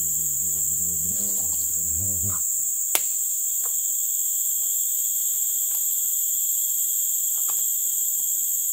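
Forest insects keep up a steady, high-pitched buzzing chorus that never lets up. A single sharp click comes about three seconds in.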